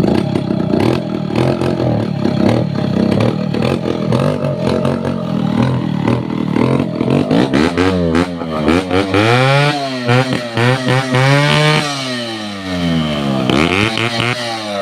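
Two-stroke chainsaw engine running fast and steady, then revved up and down several times from about eight seconds in.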